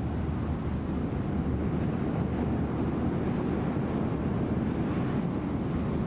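Steady wind blowing and buffeting the microphone with a low rumble, swelling a little about two seconds in.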